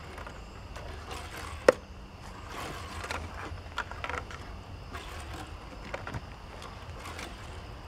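Hot Wheels Sharkruiser die-cast toy car, plastic-bottomed, flicked and sliding across a wooden tabletop: faint rolling and scraping with scattered light clicks, and one sharp click just under two seconds in.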